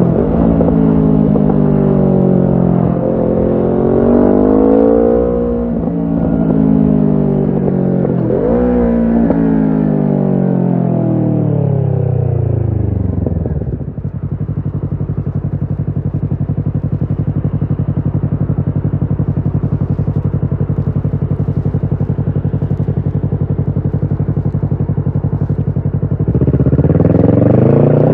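Kawasaki Ninja 650's parallel-twin engine breathing through a Shark SRC-4 full exhaust system. It rises and falls in revs through the gears, winds down to a steady idle about 13 seconds in, holds that idle for about twelve seconds, then revs sharply up again near the end.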